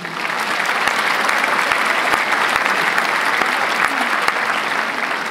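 Audience applauding: a dense, steady clapping that tapers off near the end.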